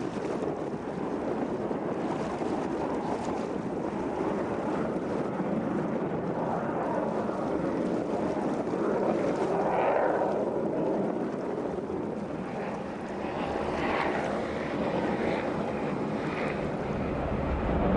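Wind buffeting the microphone and water rushing along a small boat's hull under way, a steady rushing noise that swells louder about ten seconds in and again about fourteen seconds in.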